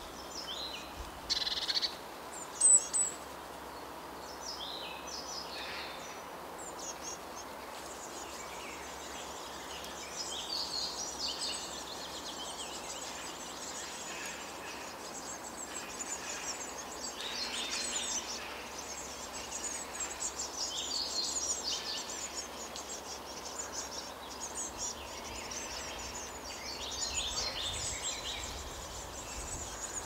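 Nestling birds making rapid, high-pitched calls in repeated bursts, with two louder sharp calls about two seconds in, over a steady background hiss.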